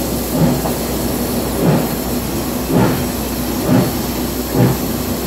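Steam locomotive working hard, heard in the cab at the firebox doors: a steady roar and hiss of the fire and steam, with a heavier pulse about once a second.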